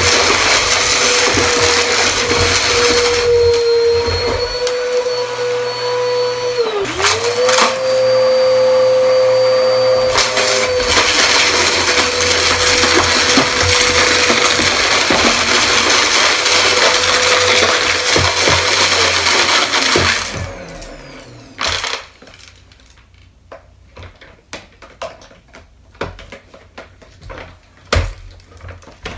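Bagless upright vacuum cleaner running over a rug, sucking up scattered sequins, glitter and confetti with a crunchy rattle through the brushroll. Its motor tone dips briefly about seven seconds in. About twenty seconds in the motor is switched off and winds down, leaving scattered light knocks and clicks.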